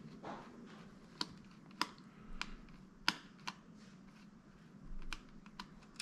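A small screwdriver backing out a tiny screw from the metal SSD shield of a laptop: a few light, irregular clicks of the driver tip in the screw head, with soft handling rustle in between.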